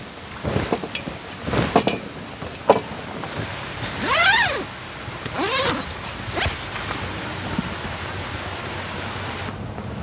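A dog giving two drawn-out, yelping barks about a second apart, each rising and then falling in pitch, over the steady rush of stream water. A few sharp knocks come in the first few seconds.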